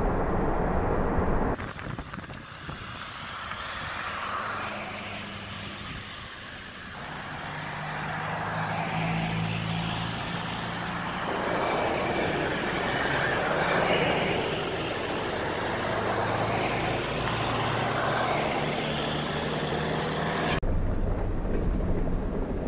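Off-road vehicle driving, heard from inside the cab: the engine runs steadily under road and tyre noise. The sound changes abruptly about a second and a half in and again near the end, as separate driving clips are cut together.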